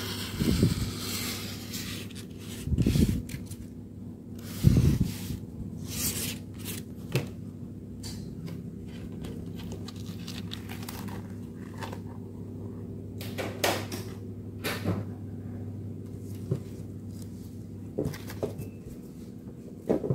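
Hands handling and pressing a printed paper sheet onto hardboard on a tabletop: paper rustling with scattered knocks and thumps, over a steady low hum that stops near the end.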